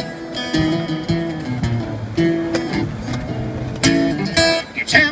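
Acoustic guitar playing a blues instrumental break between sung verses: sustained picked notes and strums, punctuated by several sharp, irregular accents.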